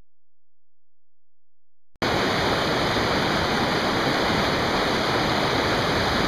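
Silence, then from about two seconds in, the steady rush of river water running over rocks in a shallow rapid.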